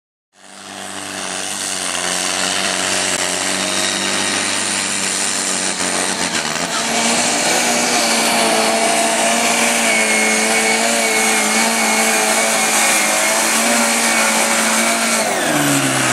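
Garden-class pulling tractor's engine running at full throttle as it drags a weight-transfer sled down the track. Its pitch falls away near the end as the pull finishes.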